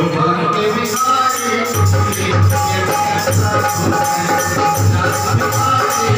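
Loud dance music with a steady drum beat; the low beat drops out briefly near the start and comes back about two seconds in.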